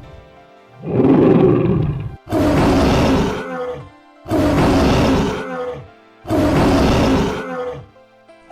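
Big cat roaring four times in a row, each roar deep and rough and lasting over a second, with short pauses between, over faint steady background music.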